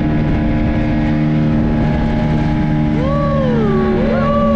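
Speedboat outboard engine running at a steady pitch, with rushing wind and water noise. Near the end come two short rising-and-falling calls over it.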